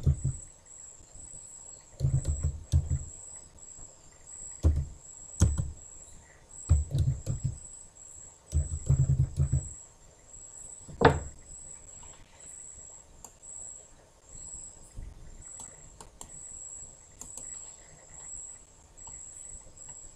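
Typing on a computer keyboard in short bursts of keystrokes, heard mostly as dull thumps, over the first ten seconds, then one sharp, loud knock about eleven seconds in, followed by a few faint clicks.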